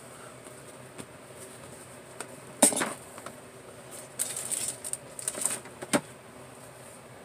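Small hard objects being handled on a table: a sharp knock about two and a half seconds in, then a run of light clicks and rattles a second later and a last click near six seconds.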